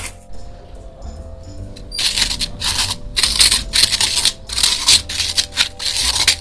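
Fried gond (edible gum) puffs being crushed with a steel bowl in a steel plate: repeated crunching and scraping strokes, about two or three a second, starting about two seconds in.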